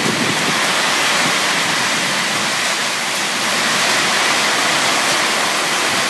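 Heavy monsoon downpour with strong wind: a loud, steady, dense rush of rain.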